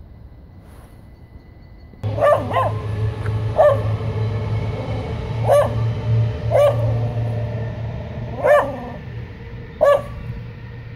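A dog barking about seven times at irregular intervals, starting about two seconds in. Under the barks runs the steady low rumble of a passing electric train.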